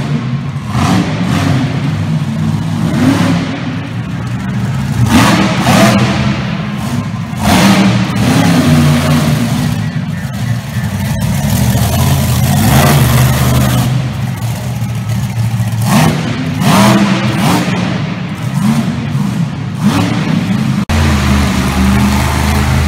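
Monster truck engines revving hard, the engine sound surging up and falling back again and again.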